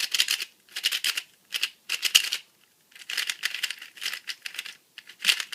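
A new 3x3 speedcube being turned fast by hand, its plastic layers clicking and clacking in quick bursts, with a short pause about halfway through.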